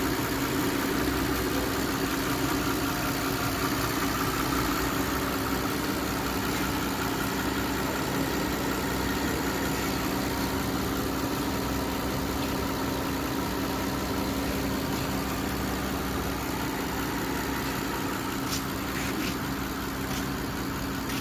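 Mercedes-Maybach S-Class twin-turbocharged 6.0-litre V12 petrol engine idling steadily with an even hum, heard up close in the open engine bay.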